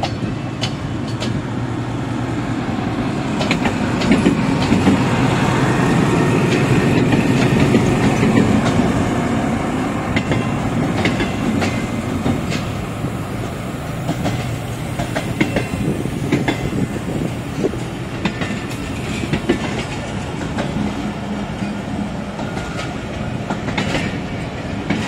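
Diesel locomotive passing close by, its engine louder in the first third, then passenger coaches rolling past with wheels clicking over the rail joints.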